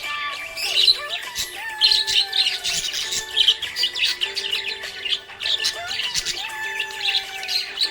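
Small pet parrots chirping and twittering rapidly and continuously, over background music with a slow melody.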